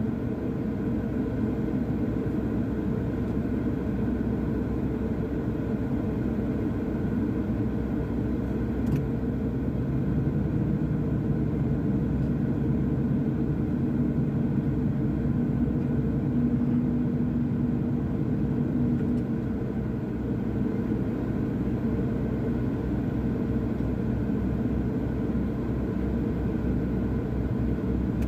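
Doosan DX210W wheeled excavator's diesel engine running steadily with a low rumble. A click comes about nine seconds in, and a higher note joins the engine sound for about ten seconds before fading.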